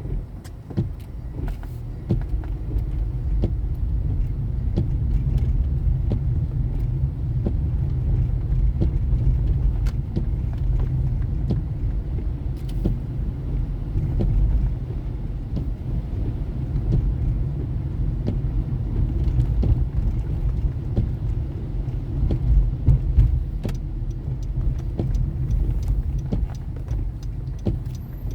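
A car driving, with a steady low rumble of road and engine noise and scattered light clicks and rattles throughout.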